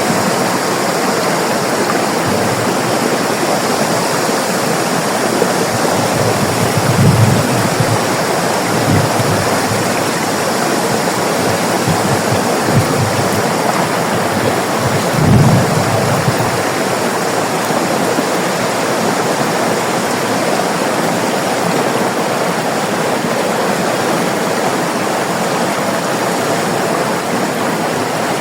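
River water rushing steadily, with a few brief low surges of the current, the strongest about fifteen seconds in.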